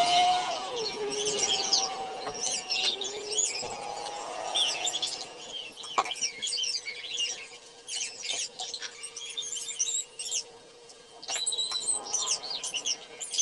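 Many small birds chirping busily and without a break, over a faint steady hum. One sharp click about six seconds in.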